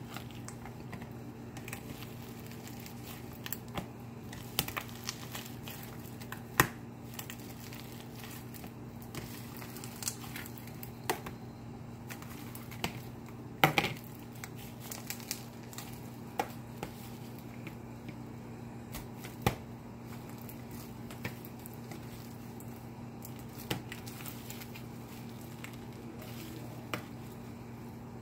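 Crunchy slime studded with foam beads, left uncovered for three days, being kneaded and squeezed by hand in a plastic tub: soft crackling and crunching with scattered sharp pops and clicks, the loudest about halfway through. A steady low hum runs underneath.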